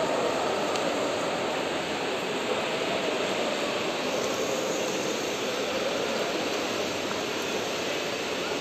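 Steady echoing roar of an indoor swimming pool hall, with many swimmers splashing through the water at once.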